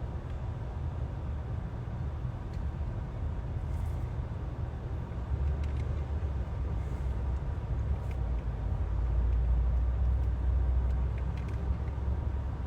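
Truck engine running, heard from inside the cab as a steady low rumble that swells about five seconds in and again for a couple of seconds near the end, with a few faint clicks.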